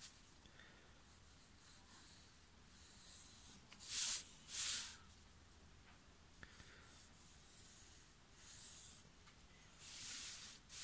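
Pencil drawn along a wooden board to mark guide lines: a few soft scratchy strokes, the two loudest about four seconds in, half a second apart.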